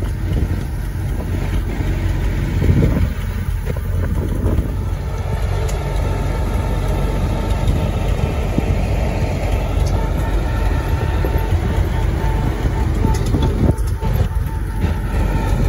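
Old farm tractor's engine running steadily as it tows a wagon along.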